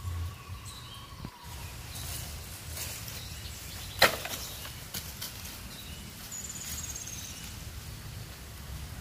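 Low handling and rustling noise, with a single sharp knock or crack about four seconds in.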